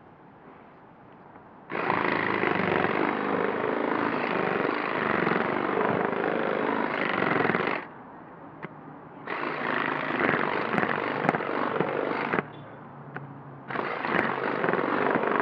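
Handheld power cut-out tool buzzing in three runs, a long one of about six seconds and then two shorter ones, each starting and stopping abruptly, as it cuts through the bead holding a windshield from inside the car.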